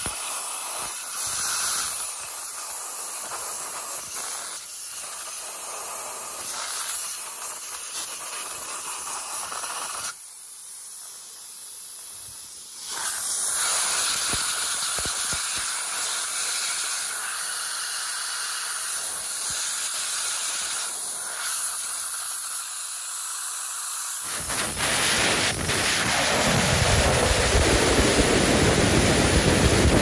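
Compressed nitrogen hissing out of a brass blow nozzle into a removed gas-furnace burner tube, blowing out spider webs that were blocking the gas flow. The steady hiss drops away for a few seconds about ten seconds in, then returns; near the end a louder, deeper rushing noise takes over.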